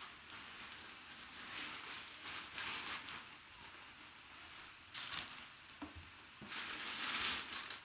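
Plastic wrapping and a plastic bag rustling and crinkling as they are handled, in several bursts of rustling, the fullest near the end.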